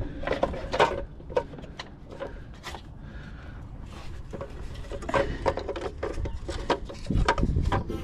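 Hands and tools working at parts under a car: irregular clicks, light knocks and rubbing, with a busier spell of knocks in the last few seconds.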